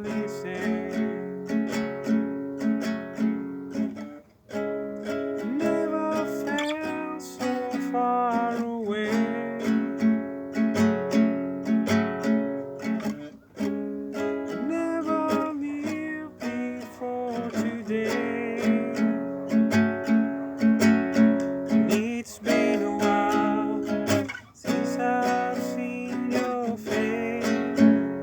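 Music: acoustic guitar strumming and picking chords in a steady rhythm, with a few short breaks.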